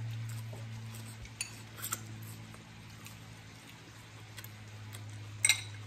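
Metal fork clinking and scraping against a ceramic salad bowl a few times, the sharpest clink near the end, over a low steady hum.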